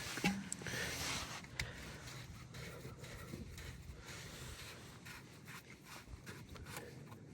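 Light rubbing and scuffing with many small, irregular clicks, the sound of hands handling parts up close.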